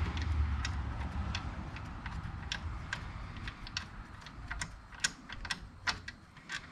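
Irregular light metallic clicks and taps of a socket and tools being fitted and handled on a rusty rear-suspension bolt, while the low hum of an air compressor dies away over the first second or two.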